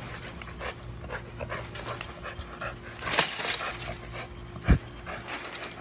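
A dog panting in short, quick breaths, with a louder noisy burst about three seconds in and one sharp thump near the end.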